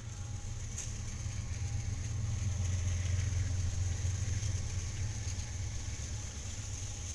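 Several diesel-electric freight locomotives passing close by: a steady low engine rumble that swells to its loudest about halfway through, with a hiss above it.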